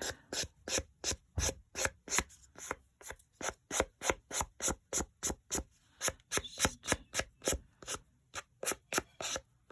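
Nail file rubbing back and forth along the rough cut edge of a sheet of paper to smooth it, in quick rasping strokes of about three or four a second, with a couple of short pauses.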